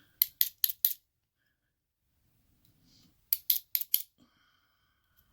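Two quick runs of four sharp clicks, about a second apart within each run and some three seconds between the runs: small hand tools working on the pins and springs of a disassembled Yale pin-tumbler lock cylinder.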